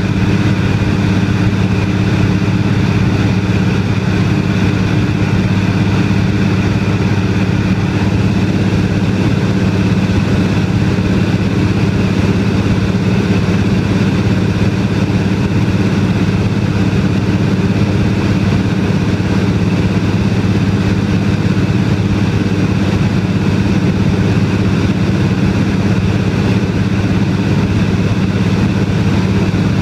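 De Havilland Canada DHC-2 Beaver seaplane's engine and propeller droning loud and steady in cruise, heard from inside the cabin.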